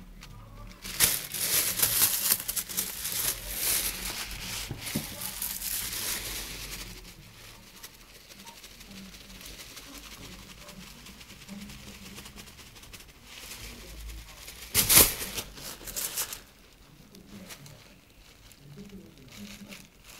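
A thin plastic carrier bag being crinkled and rustled: a long stretch of crackling starting about a second in and lasting some six seconds, then a shorter, louder burst about fifteen seconds in.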